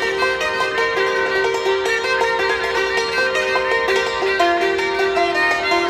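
Thai classical duet: a saw (Thai two-string bowed fiddle) plays a sustained, stepping melody while a khim (hammered dulcimer) adds rapid struck notes.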